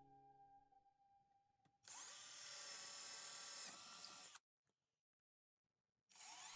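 A handheld power tool motor running steadily for about two and a half seconds, then cut off abruptly; a similar tool sound starts again near the end.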